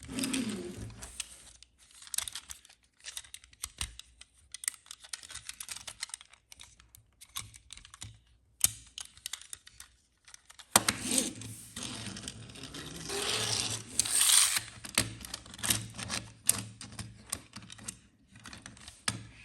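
Rapid, irregular clicking and clattering of small hard objects. A little past halfway a low steady hum joins in and the clicks become denser and louder.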